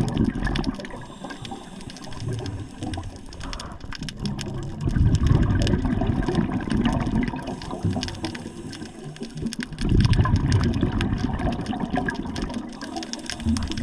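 Water sloshing in slow surges that swell about every five seconds, with many small clicks scattered throughout.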